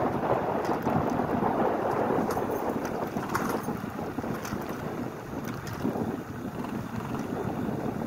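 Wind rushing over the microphone as an e-bike rides along at speed, a steady noise that eases a little partway through, with a few light ticks.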